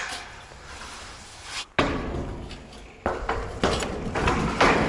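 Long metal standing-seam roofing panel being carried and handled: a sharp knock at the start, then scattered knocks and rustling noise that grow busier in the second half.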